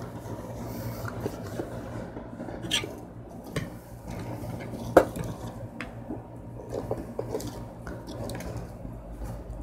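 Rustling of cotton boxer shorts as they are handled and folded by hand, with a few light clicks and knocks from objects being moved, the sharpest about five seconds in. A low steady hum runs underneath.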